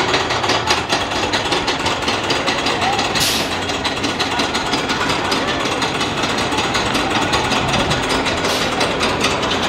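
Roller coaster chain lift hauling a car up the lift hill: a steady, rapid run of clicking and clanking from the chain and the anti-rollback ratchet.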